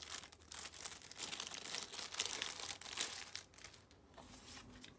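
Packaging crinkling and tearing as it is unwrapped by hand, busiest in the first three seconds or so and then fainter.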